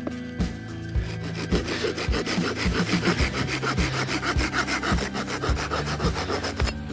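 Small handsaw sawing through a straight stick of firewood in steady back-and-forth strokes, cutting it to length for a tent peg.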